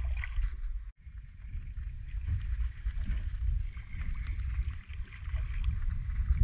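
Wind buffeting the microphone in a low, uneven rumble, with water lapping and slapping against a small fishing boat's hull; the sound cuts out for an instant about a second in.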